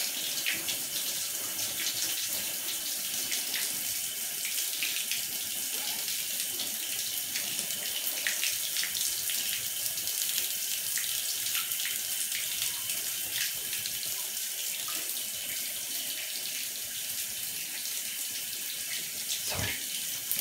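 Shower running steadily in a tiled shower stall, water spraying down onto a wet dog and the floor, a constant hiss with scattered small splashes. A single dull knock near the end.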